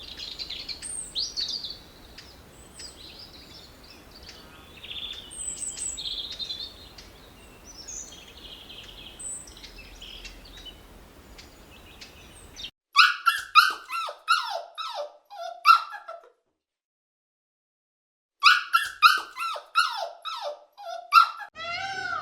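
An animal's high-pitched calls: scattered chirps and squeaks for about the first half, then two quick runs of short, falling yelps, each a few seconds long with a pause between.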